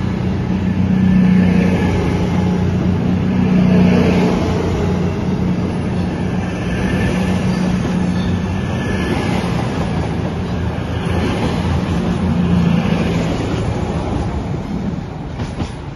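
Pair of CrossCountry Voyager diesel-electric multiple units (a Class 221 leading a Class 220) pulling away and passing close by, their underfloor diesel engines working under power with a steady low drone. The sound eases a little near the end as the train draws away.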